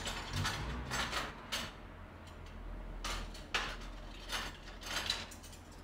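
Short scrapes and clatters of things being handled in a kitchen, several quick bursts in three clusters over a low steady hum.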